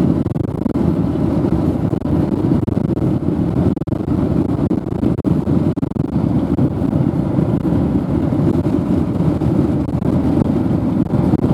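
Steady low rumble of a moving car's road and wind noise.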